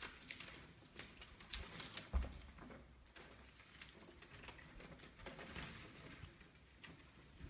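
Faint scattered light clicks and rustles, with one low thump a little over two seconds in.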